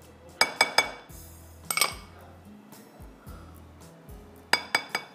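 A spoon and small glass bowls clinking as spices are measured out. The taps come in three short clusters, about half a second in, near two seconds, and near the end, over soft background music.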